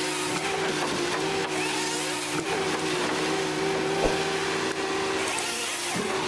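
Machinery running with a steady whine over a wide noise, with a single sharp knock about four seconds in.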